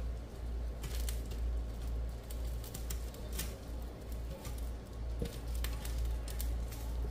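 Plastic spatula scraping and tapping against a nonstick frying pan while grasshoppers are turned in it: scattered short scrapes and clicks. A steady low hum runs underneath.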